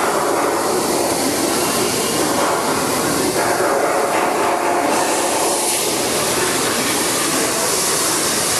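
Steady, loud machinery noise: a continuous rushing din with a faint hum under it.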